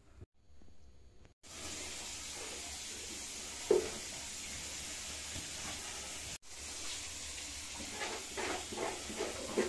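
Steady hiss that starts and stops abruptly with the cuts, with a short knock about four seconds in and faint irregular handling sounds near the end.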